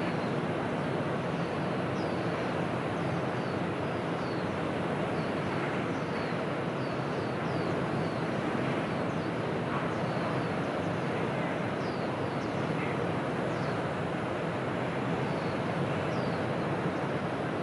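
Steady rushing background noise with frequent short, high, falling chirps from small birds scattered throughout.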